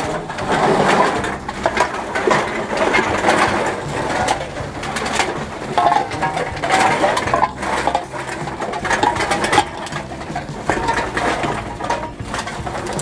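Empty drink containers clattering and rattling as they are tipped into a container-deposit recycling machine, a dense run of clinks and knocks.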